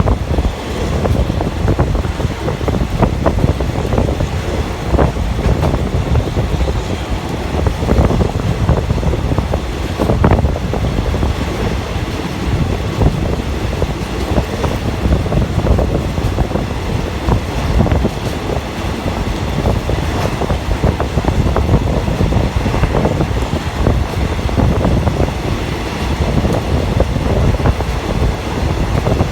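Passenger train running along the track, heard on board: a steady rumble and rattle with many sharp clacks from the wheels and carriage, and some wind noise.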